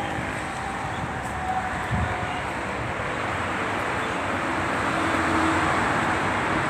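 Steady road traffic noise, growing louder near the end as a vehicle passes, with a single thump about two seconds in.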